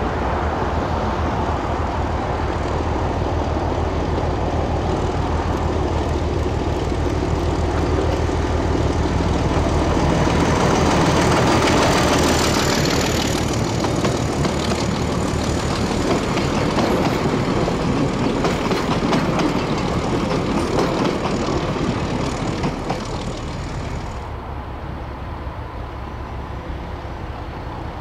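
A DE-class diesel-electric locomotive climbing under load as it passes, its engine running with a steady low note that peaks about ten seconds in. Its passenger carriages follow, wheels clattering over the rails in a rapid clickety-clack. About four seconds from the end the sound drops to a quieter, more distant locomotive.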